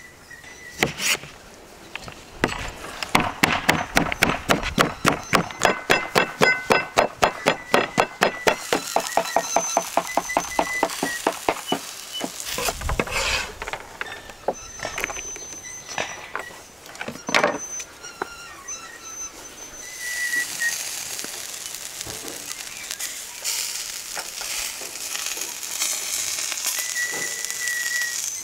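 Knife chopping pickles on a wooden cutting board: a fast, even run of strokes, about five or six a second, fading out near the middle, followed by a few single cuts.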